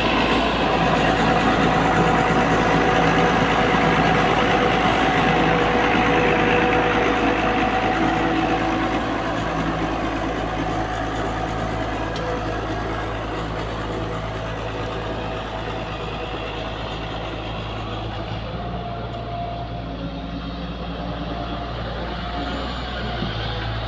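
L&T-Komatsu PC240 hydraulic excavator's diesel engine running steadily with a few held tones over it while the machine digs and swings a loaded bucket. It is a little louder for the first eight seconds or so, then eases back slightly.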